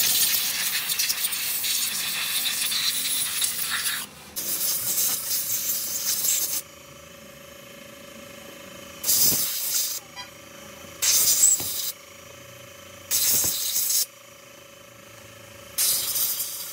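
Compressed-air siphon-cup spray gun hissing in bursts as it blasts cleaning spray over an aluminium cylinder head and small valve-train parts. There is one long blast of about four seconds, a shorter one, then four short bursts of about a second each, with a faint steady hum between them.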